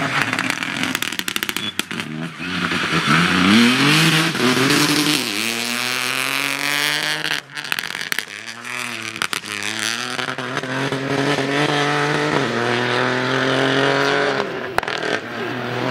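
Rally car engine revving hard and climbing through the gears. Its pitch rises, drops back at each shift and holds between shifts. About halfway there is a short lift, then quick rises and falls in revs, as when braking and downshifting for a corner.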